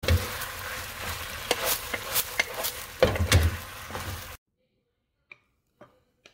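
Beef and onion stir-fry sizzling in a pan as a wooden spatula stirs and tosses it, with short knocks and scrapes of the spatula against the pan. The sound cuts off suddenly about four seconds in, followed by a few faint clicks.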